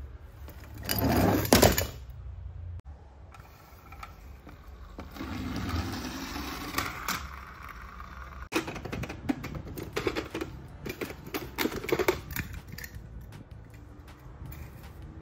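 Die-cast metal toy cars clicking and clattering against one another as they are handled and picked out of a cardboard box. A louder rustling scrape comes about a second in, and the clicks come thick and fast in the second half.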